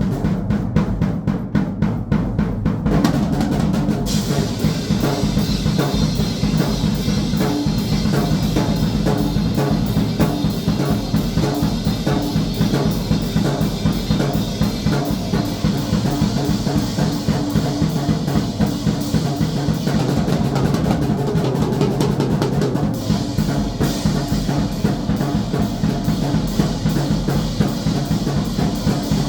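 Drum kit played in a continuous fast groove, with bass drum, snare and rolls, growing brighter about four seconds in.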